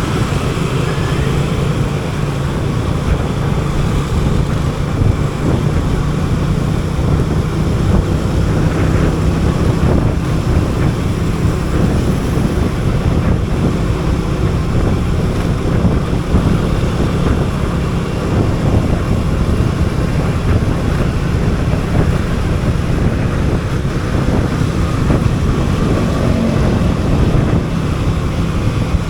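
Wind rushing over the microphone of a moving motorcycle, over the steady low hum of its engine.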